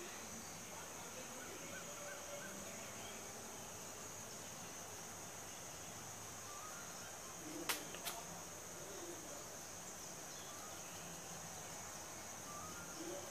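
Steady high-pitched insect chorus, crickets or cicadas, with faint short bird chirps. Two sharp clicks come close together about eight seconds in.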